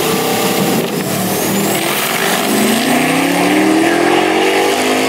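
Drag-race cars launching off the line and accelerating away down the strip, the engine note climbing steadily in pitch for a couple of seconds as they pull away.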